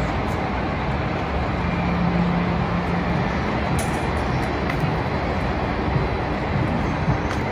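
Steady city background noise: a constant, even rumble and hiss, with a low hum that comes in briefly about two seconds in.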